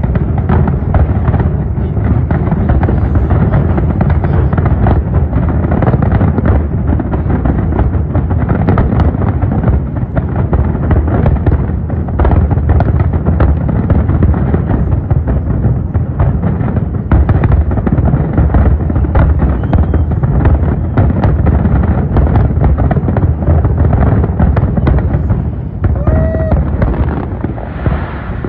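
A large aerial fireworks display: shells bursting in rapid, overlapping succession, a continuous barrage of booms and crackles over a heavy low rumble, easing slightly near the end.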